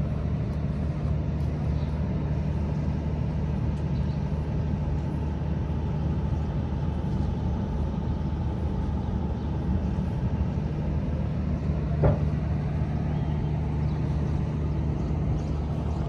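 Steady low engine hum over outdoor background noise, with one brief knock about twelve seconds in.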